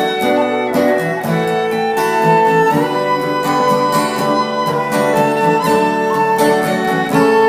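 Instrumental break of a folk song: fiddle playing the melody over strummed acoustic guitar.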